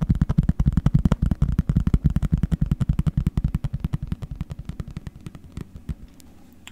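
Fast rhythmic ASMR tapping, about ten dull taps a second, fading after about four seconds and stopping shortly before the end.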